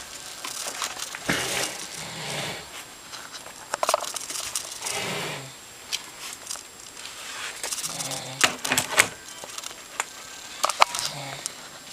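Snoring, one rough, rasping snore about every three seconds, with a few sharp clicks in between.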